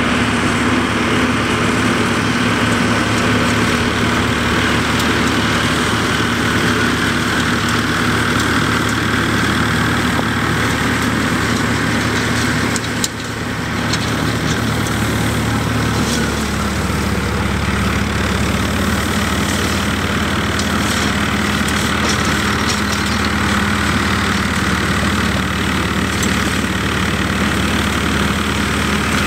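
Tractor engine running steadily while pulling a hay rake. There is a brief break about thirteen seconds in, and the engine note drops slightly about sixteen seconds in.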